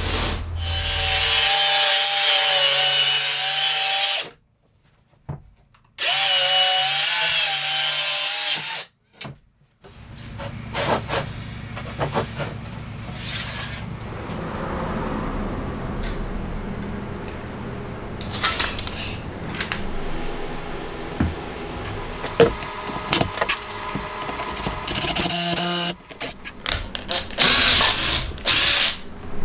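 Circular saw cutting a wooden board in two loud runs, the first about four seconds and the second about three, each stopping abruptly. This is followed by quieter scraping and knocking as the wood is handled.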